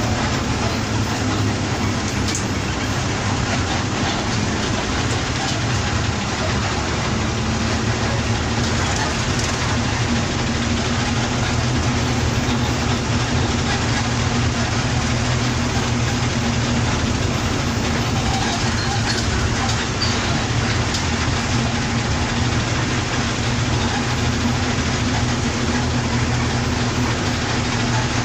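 Bus engine running steadily under way, a constant low drone mixed with road and wind noise.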